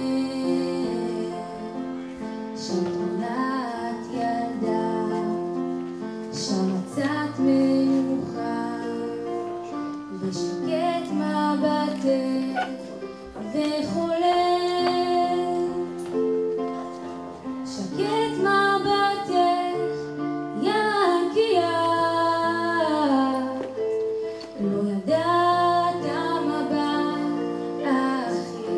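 A young woman singing a Hebrew song into a handheld microphone over an instrumental accompaniment of sustained chords.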